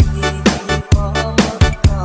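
Background music with a steady dance beat, about two strong beats a second, over a bass line.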